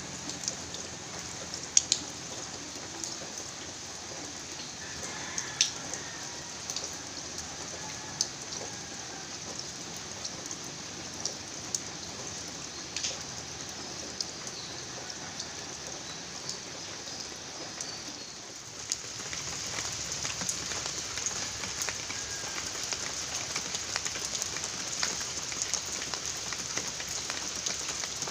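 Steady rain falling, with a scattering of single sharp drops striking close by. About two-thirds of the way in, the rain grows louder and denser.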